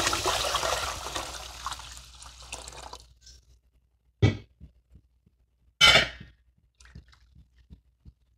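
Water poured over rinsed idli rice in a vessel to soak it, a splashing pour for about three seconds that tails off. Then two sharp knocks, about four and six seconds in, the second the louder.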